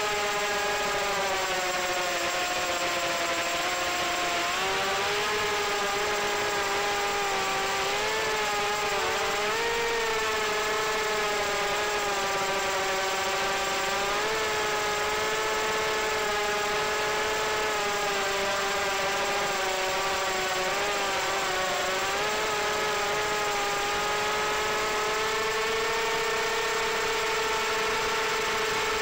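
Electric motors and propellers of an FPV drone heard from its on-board camera: a steady high whine whose pitch rises and falls with the throttle, climbing around ten seconds in and again near the end.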